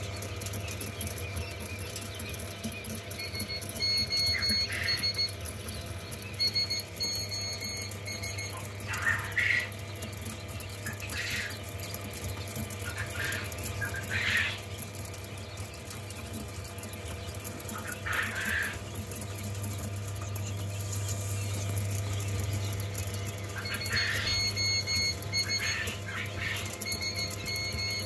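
A brooder full of week-old Texas quail chicks peeping in short scattered calls over a steady low hum. Several times there is a quick run of rapid, evenly spaced high pips.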